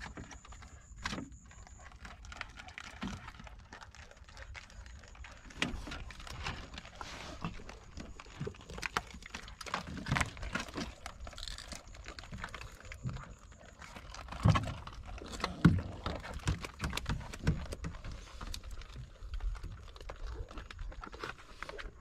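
Irregular clicks, wet knocks and a few dull thumps as fish are handled and shifted in the hold of a wooden boat, the loudest thumps about two-thirds of the way through.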